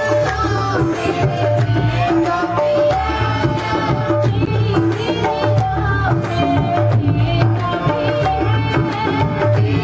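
Live worship song: tabla and dholak drumming a steady rhythm under a harmonium, with a woman singing.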